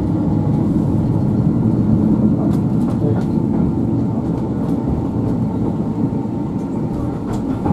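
Blackpool Corporation tramcar 167 running along the track, heard from inside the wooden saloon. There is a steady low rumble of wheels on rails and running gear, with a few faint clicks.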